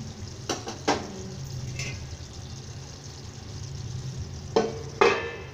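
A metal spoon clinking and scraping in an aluminium kadhai of simmering aloo gobi, with a few sharp clinks in the first two seconds. Near the end come two loud ringing metal clanks, a steel plate being set on the pan as a lid, over a steady low hum.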